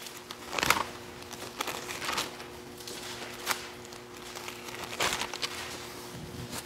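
Thin Bible pages being turned and rustled, in short rustles about once a second, while looking up a passage.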